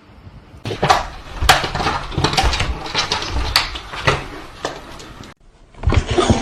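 Hard objects clattering and knocking, with several sharp loud clicks among them; it cuts off abruptly about five seconds in.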